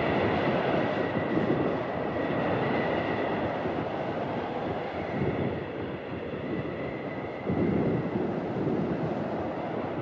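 Strong blizzard wind blowing across snowy mountains: a steady rushing with a faint high whistle over it, swelling in gusts about halfway and again near the end.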